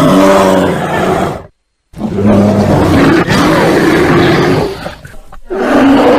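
Bear roaring: a loud, rough roar that cuts off abruptly about a second and a half in, a short dead-silent gap, then a second, longer roar, with a third starting near the end.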